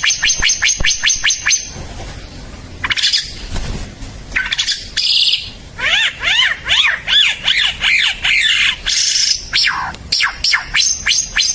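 Timor figbird singing: a fast trill of downslurred notes, about a dozen a second, then a varied run of arching, up-and-down notes and a few falling sweeps, and another fast trill near the end.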